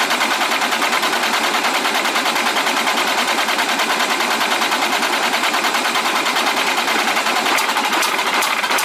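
Starter motor cranking a Caterpillar 3406E inline-six diesel in a fast, even rhythm of compression strokes, the engine not yet firing while fuel is pumped through after its overhaul.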